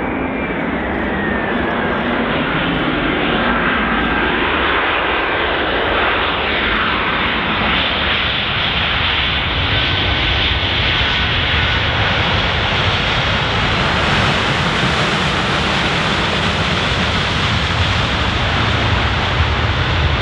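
Boeing 737-400's CFM56-3 turbofan jet engines on landing. A whine falls in pitch over the first two seconds as the jet passes low. The jet noise then runs steadily through the rollout and grows louder, with a deeper rumble toward the end, as reverse thrust is applied.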